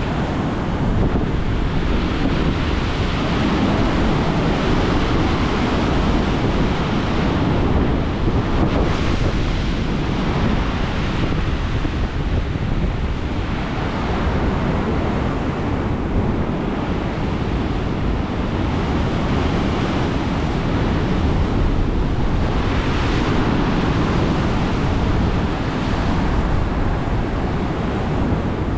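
Loud, continuous ocean surf breaking and washing, with wind rumbling on the microphone.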